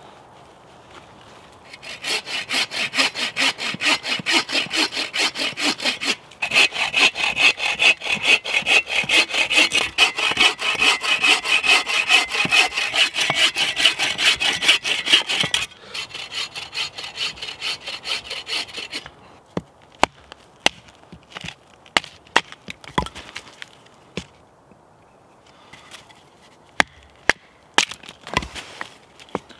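Hand saw cutting through a dead branch into short firewood rounds with quick, steady back-and-forth strokes. It stops briefly once and goes quiet about halfway through. After that come a handful of sharp, separate knocks.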